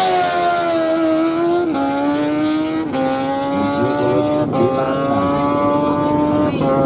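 Kawasaki Z-series sport motorcycle accelerating hard down a drag strip, its engine held high in the revs. The engine note drops sharply at each upshift, about four times, as the bike pulls away through the gears.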